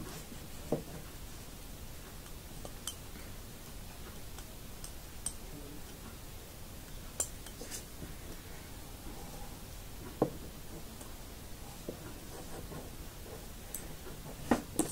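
Light, scattered clicks and clinks of a plastic loom hook and rubber bands against the metal tines of two forks as the bands are lifted over them. A sharper knock comes about ten seconds in and two more near the end.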